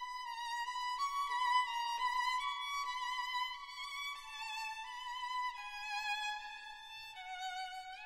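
Background music: a slow violin melody with vibrato, each note held for about a second, stepping gradually lower in the second half.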